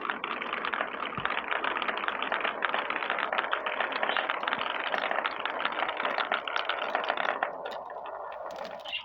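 Many marbles rolling and clattering down a handmade marble run, a dense rapid rattle of small clicks that thins out about seven and a half seconds in.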